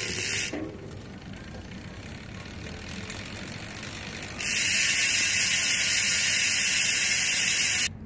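Bontrager Rapid Drive rear freehub, upgraded from three to six pawls for 108 points of engagement, freewheeling as the rear wheel spins: a fast ratchet buzz heard briefly at the start, softer for a few seconds, then loud and steady from about four and a half seconds in until it cuts off just before the end.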